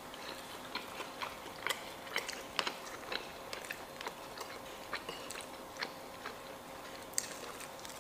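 Eating sounds at a table: chewing, with small irregular clicks and taps of a spoon and fork against china plates and bowls.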